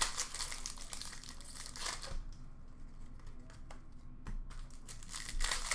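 Plastic-foil wrapper of an Upper Deck hockey card pack crinkling and tearing as it is ripped open by hand. The rustle is dense for the first two seconds, thins to scattered crackles, and picks up again near the end.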